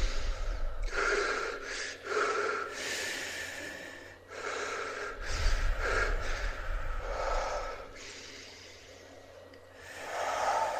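A person breathing heavily: a run of loud, gasping breaths in and out, one every second or so, with a short pause before a last breath near the end. A low rumble runs under some of them.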